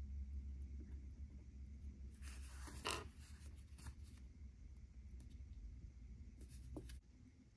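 Faint rubbing and scratching of fingertips on a printed paper wallpaper card while a small black plastic hook is pressed onto it, with one brief louder scratchy rustle about three seconds in and a few small clicks near the end. A low steady hum runs underneath.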